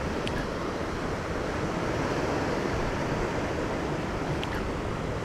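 Ocean surf washing against the rocks of a jetty, a steady rushing noise, with wind buffeting the microphone.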